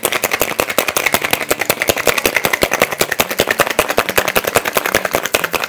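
Ice cubes rattling inside a copper cocktail shaker shaken hard and fast with both hands: a loud, steady, rapid clatter of knocks.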